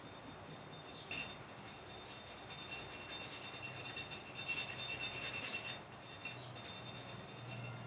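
Rust being scraped off a metal object: a steady rasping scrape that grows louder for a few seconds in the middle, with one sharp click about a second in.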